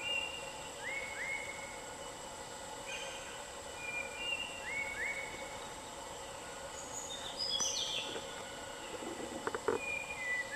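Forest birds calling: short whistled notes, several rising in quick pairs, with a brief cluster of higher calls in the middle, over a steady high-pitched hum. A few short snaps or knocks sound near the end.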